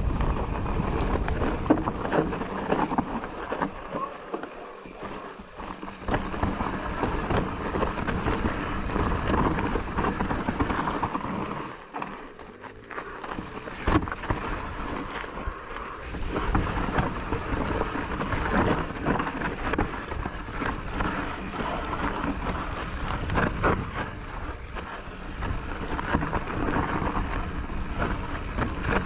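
Enduro mountain bike descending a rough, rocky trail, heard from an action camera on the rider or bike: wind rushing over the microphone, tyres rolling over rocks and gravel, and frequent clattering knocks from the bike. It drops quieter for a moment about four seconds in and again about twelve seconds in.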